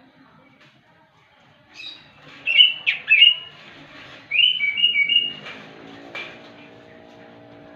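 Orange-headed thrush singing: a run of loud, quick whistled phrases with sliding notes, beginning about two seconds in and fading out after about five seconds. A faint low drone sits underneath near the end.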